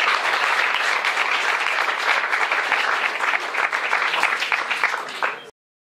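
Audience applauding, many hands clapping together at a steady level; the applause cuts off abruptly about five and a half seconds in.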